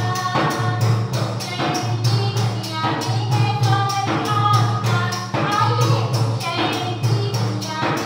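Music: a song with a voice singing over a fast, steady percussion beat and a deep, sustained bass.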